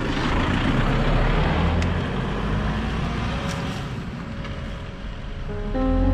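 A road vehicle passing, a low rumble with road hiss that fades over a few seconds. Background music comes in near the end.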